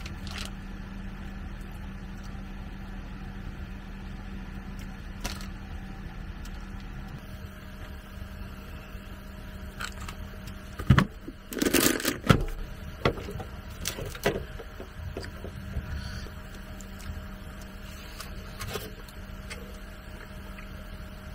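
Plastic packaging crinkling and rustling in bursts as a small mustard packet is handled, torn open and squeezed out, loudest about eleven seconds in, over a steady low hum.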